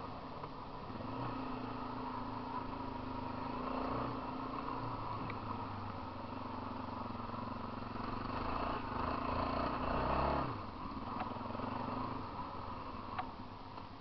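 Motorcycle engine running while riding along a rough dirt track, heard from a helmet camera. The engine swells louder about eight seconds in, then drops off sharply a couple of seconds later as the throttle closes, with a few small knocks.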